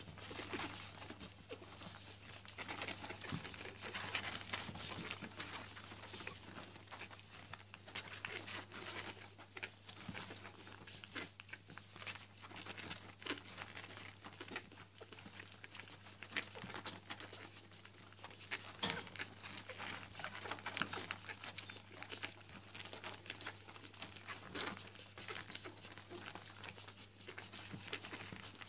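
Newborn puppies nursing from their mother: faint irregular suckling, snuffling and small squeaks, with rustling of the blanket. One sharp click about two-thirds of the way through is the loudest sound.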